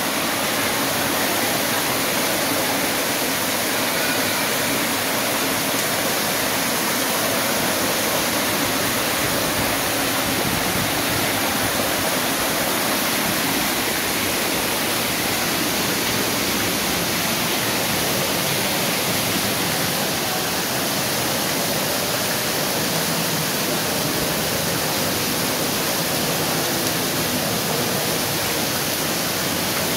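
Steady rush of falling water from a waterfall pouring over a rock tunnel's mouth and water running down the tunnel's walls and floor, loud and unbroken.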